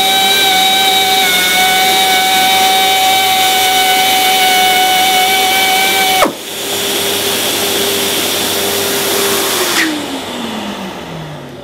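Compressed-air step-sanding tool running with a steady high whine over the hiss of its vacuum dust extractor. About six seconds in the air tool cuts off with a click. The auto-start extractor runs on for a few seconds, then winds down in a falling pitch.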